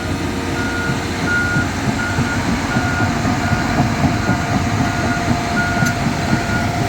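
Motion alarm beeping steadily, about one and a half beeps a second, over the diesel engine rumble of a John Deere 350G excavator moving on its tracks.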